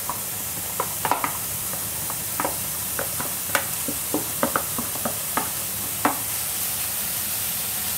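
Lardons sizzling as they are tipped into a hot stainless-steel frying pan: a steady hiss with scattered sharp crackles and pops, most of them in the first six seconds.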